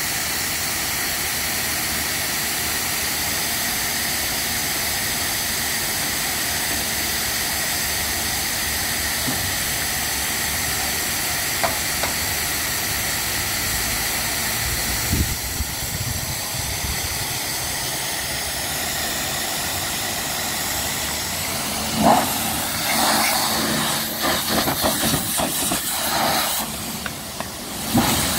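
High-pressure washer spraying water in a steady hiss, with a thin steady whine running through it. In the last several seconds the sound turns irregular, with uneven splashing and scrubbing as the spray and a brush work the trailer.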